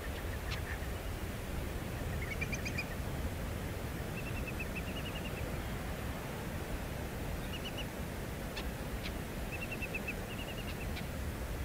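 Birds calling in short runs of quick chirps, with a few sharp single notes in between, over a steady low rushing background.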